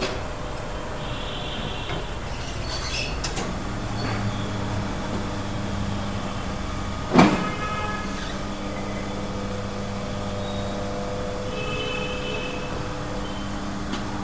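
Tyre changer machine mounting a paste-lubricated tyre onto an alloy rim. A steady motor hum starts about three and a half seconds in, with brief high squeaks now and then and one loud knock about seven seconds in.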